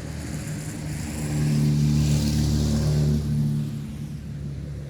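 Engine of a passing motor vehicle: a steady engine hum with a hiss that swells for a couple of seconds in the middle and then fades.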